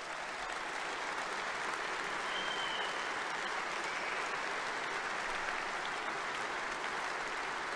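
Large hall audience applauding steadily, a dense, even clapping that holds at one level without letting up.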